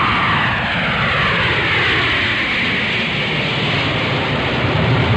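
Airplane flying past: a loud, steady engine rush with a whine that falls in pitch as it goes by.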